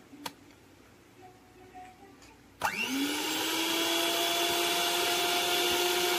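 Russell Taylors stand mixer's electric motor switched on about two and a half seconds in, spinning up with a quickly rising whine and then running steadily at speed. A single click comes shortly before, near the start.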